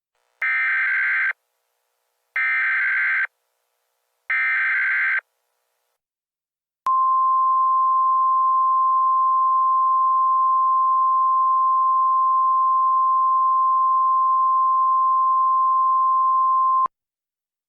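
Emergency Alert System header: three short bursts of buzzy data tones, each a little under a second long, then a single steady attention tone held for about ten seconds that cuts off suddenly, signalling that an emergency message follows.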